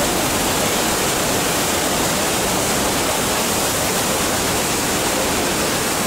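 The Rhine Falls, a large river waterfall, with a steady, unbroken rush of water pouring over the rocks and churning below.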